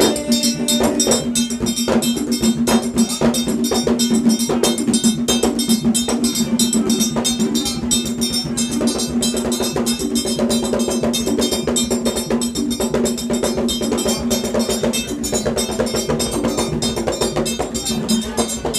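Vodou ceremonial percussion: a metal bell struck over and over in a fast, steady rhythm, ringing brightly, with other hand percussion beneath it.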